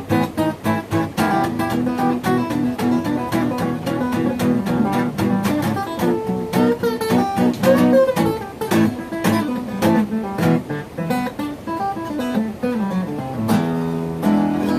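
Acoustic guitars playing a blues jam: quick plucked notes throughout, settling about 13 seconds in onto a held chord that rings out.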